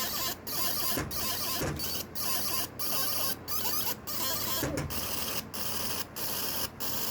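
A small machine running in a steady rhythm, its hiss dropping out briefly about one and a half times a second.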